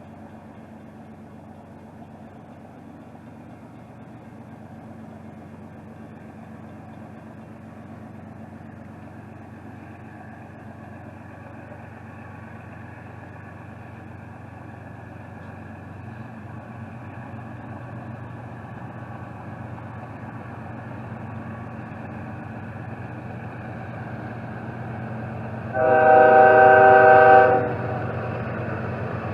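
Diesel freight locomotive approaching, its engine drone slowly growing louder, then one loud air-horn blast lasting about a second and a half near the end.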